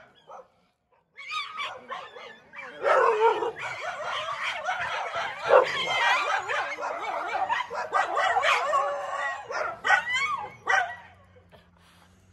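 Stray dogs in a scuffle, a dense stretch of barking and yelping that starts about a second in and dies away near the end.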